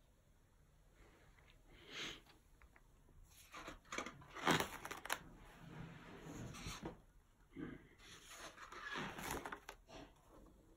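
Large stiff paper pages of a spiral-bound photo album being handled and turned by hand, giving a few brief papery rustles and swishes.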